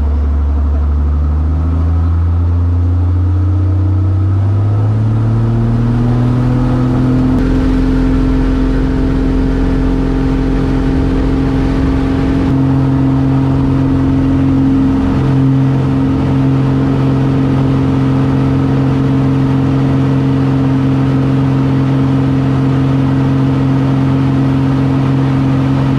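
Extra 300 aerobatic aircraft's six-cylinder Lycoming engine and propeller heard from the cockpit, throttling up for the takeoff roll. The pitch climbs over the first seven seconds or so, then holds a steady high drone through the lift-off and climb.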